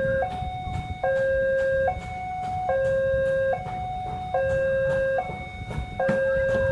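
Railway level crossing warning alarm sounding a repeating electronic two-tone signal, low and high notes alternating about every eight-tenths of a second, over a low rumble with scattered clicks.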